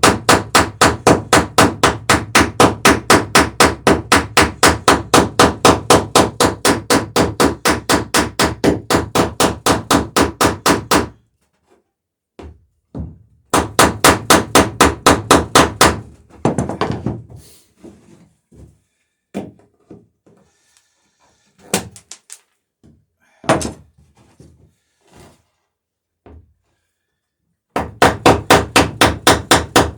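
A hammer peening copper boat rivets over their burrs on a wooden dory's planks, spreading and rounding the rivet heads. The blows come fast and evenly, about four a second, and stop about eleven seconds in. A short second run follows, then a few scattered knocks, and the fast hammering starts again near the end.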